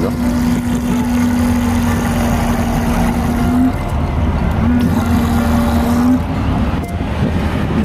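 Small electric faucet water pump humming while the tap runs into a stainless steel sink bowl, with water splashing. The pump cuts out about three and a half seconds in as the tap is shut, runs again for about a second and a half when it reopens, then stops.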